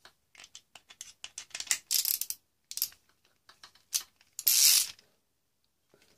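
Hand socket ratchet clicking in quick runs as a bolt through a stack of steel washers is tightened down, with small metal clinks. A louder, longer rasping run of clicks comes about four and a half seconds in.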